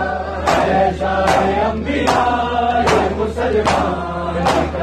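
Men chanting an Urdu noha (mourning lament) together in unison. Over the chant comes the crowd's matam, hands striking chests in one sharp slap about every 0.8 seconds.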